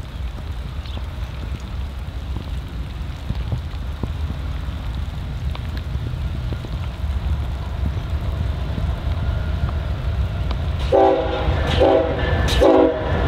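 Approaching Norfolk Southern freight train: a steady low rumble of diesel locomotives and cars growing slowly louder, then three short blasts of the locomotive horn near the end.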